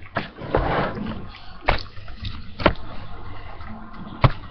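Dog eating, making wet mouth sounds, with a handful of sharp knocks spread across a few seconds.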